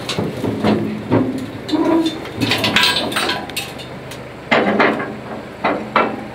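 An engine idling steadily under a run of irregular metal knocks and clanks, the densest rattle a little before halfway and more sharp knocks near the end.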